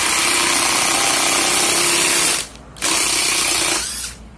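Cordless 12 V impact driver hammering a screw into a wooden block: one run of about two and a half seconds, a short break, then a second run of about a second that dies away near the end.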